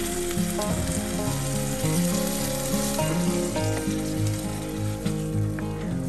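Tomato, pepper, onion and rice mixture sizzling in a hot pan as hot water is added, stirred with a wooden spoon. Instrumental background music with a stepping melody plays underneath.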